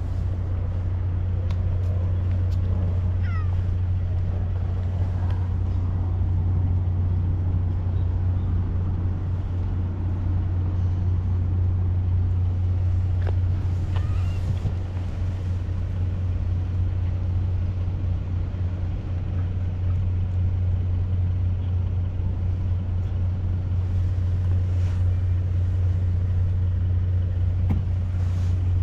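Steady low hum of an idling engine.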